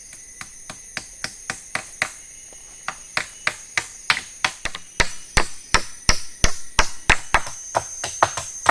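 Repeated sharp tool strikes on wood, a few a second, coming faster and louder from about three seconds in, as poles are worked for a shelter floor.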